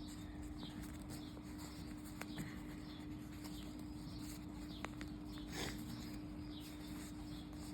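Faint rustling and a few light taps of paper being folded and creased, over a steady low electrical hum.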